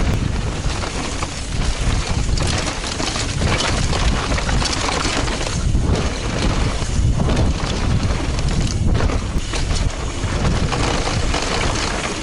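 Wind buffeting the microphone of an action camera on a mountain bike descending fast, over the rumble and crunch of tyres on dry dirt and the rattle of the bike over bumps. The noise is steady and rough throughout, with no pauses.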